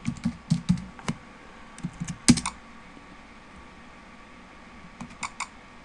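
Computer keyboard typing: a quick run of keystrokes for about the first second, a few more keys with one louder, sharper press about two seconds in, then a pause and a few more clicks near the end.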